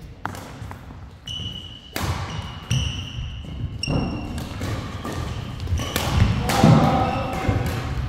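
Badminton doubles rally: rackets striking the shuttlecock, with court shoes squeaking in short high squeals and thudding on the court floor. The hits and footfalls come thickest and loudest about two-thirds of the way through.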